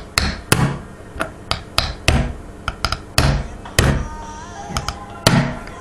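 About a dozen sharp, irregular knocks as a digital camera's image sensor is struck hard in an attempt to break it; the sensor holds.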